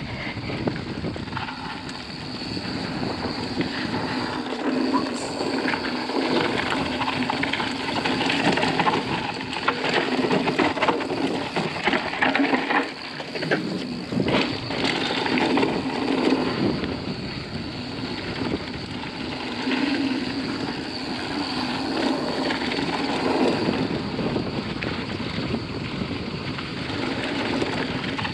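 Mountain bike ridden fast down a dirt trail, heard from the rider's body-mounted camera: tyres rolling and crunching over dirt and stones, with frequent knocks and rattles from the bike over bumps and roots.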